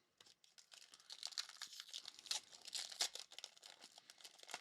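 Faint crinkling and tearing of a trading card pack wrapper being opened, in a dense run of small crackles.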